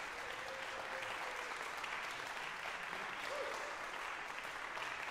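Audience applauding steadily, with a brief voice calling out about three seconds in.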